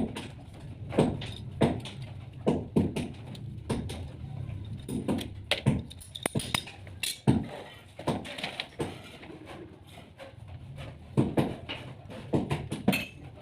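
Irregular knocks and clicks from PPR plastic water pipe and fittings being handled and fitted, about a dozen sharp knocks spread unevenly.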